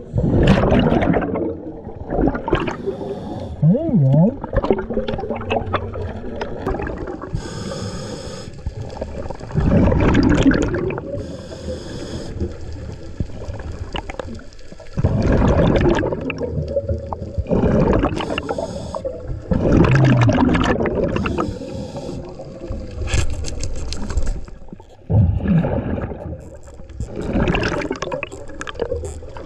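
Scuba breathing heard underwater: the regulator hisses on each inhale and exhaled air bubbles gurgle, in repeated breaths every two to three seconds.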